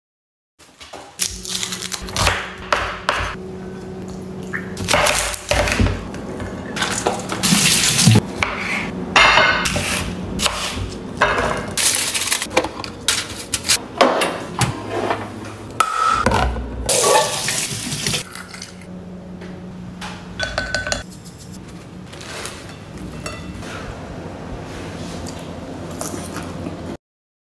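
Kitchen handling sounds: many short clicks, knocks and clatter of dishes, cookware and utensils over a steady low hum. The clatter is busiest in the first two-thirds and sparser near the end.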